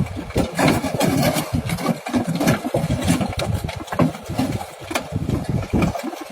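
An engine running, heard as an uneven rumble with frequent short clicks and dips.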